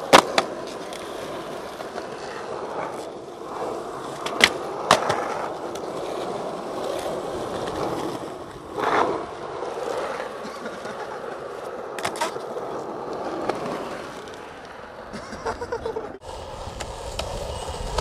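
Skateboard wheels rolling over asphalt, broken by several sharp clacks of the deck and tail striking the ground.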